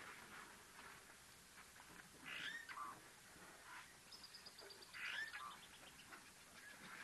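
Wild bird calls: a short call of a few notes with a sliding note and a lower closing note, given twice about two and a half seconds apart, with a high, quick trill between them.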